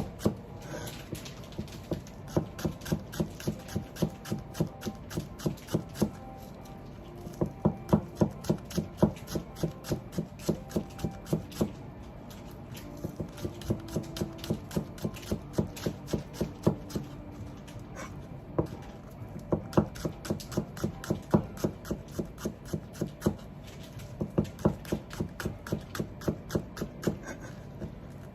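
Kitchen knife rapidly slicing negi (Japanese green onion) on a cutting board: quick, even chopping strokes at about five a second, in runs broken by short pauses.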